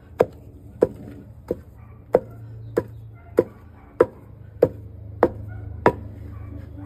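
Wooden pestle pounding dough in a wooden bowl: a steady rhythm of sharp knocks, about three every two seconds.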